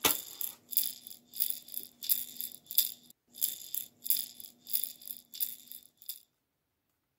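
A hand-held rattle shaken in a steady rhythm, about one and a half shakes a second, over a faint held low note. It stops abruptly about six seconds in.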